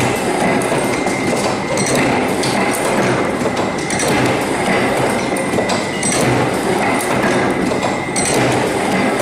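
Machinery running, a steady dense clatter with irregular sharp clicks and a faint steady whine.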